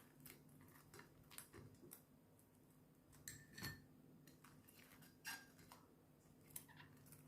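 Faint, scattered crunches of someone biting into and chewing a crispy breadcrumb-coated baked bread pocket filled with purple sweet potato; the biggest crunches come about three and a half and five seconds in.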